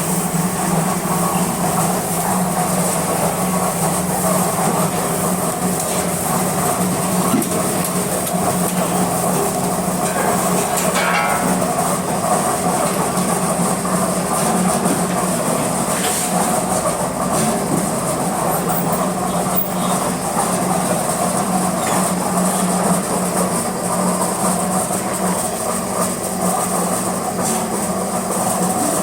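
Concrete block-making machinery running steadily: a constant low hum with continuous rattling.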